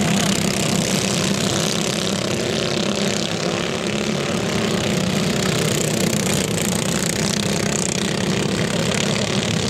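Engines of several racing cage karts running together on a dirt oval, a steady, even engine drone.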